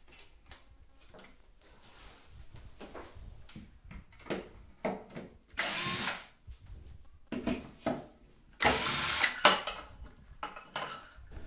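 Cordless drill-driver running in two short bursts, the second longer, backing out the screws of a shower rail's wall bracket. Light clicks and knocks of the metal bracket being handled come before.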